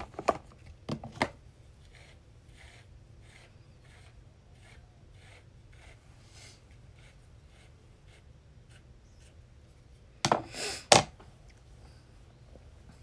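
Faint, even strokes of a hairbrush rubbing over short buzzed hair, about two a second. About ten seconds in, a few loud knocks and a rustle break in.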